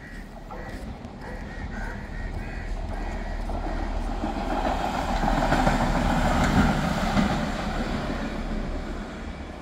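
Rail inspection car running along the track, its rumble growing louder to a peak about two-thirds of the way through and then easing off as it goes by.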